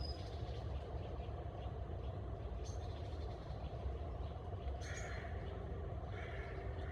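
Steady low rumbling background noise, with a crow cawing twice in the second half.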